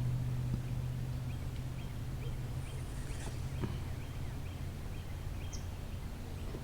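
A bird chirping faintly in a quick series of short high notes, over a low steady hum that fades away in the first couple of seconds.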